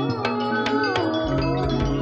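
A sinden's amplified voice sings a sliding, gliding melodic line over gamelan. Metallophones are struck about four to five times a second, and a deep low tone comes in a little over a second in.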